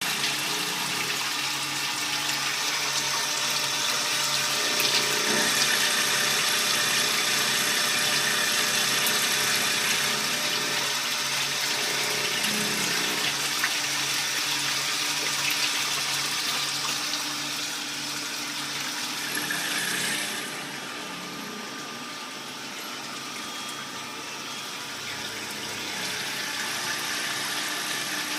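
Multi-function automatic lathe turning small-diameter parts: a steady machine hum over a continuous wash of flowing coolant. The noise drops a little about two-thirds of the way through.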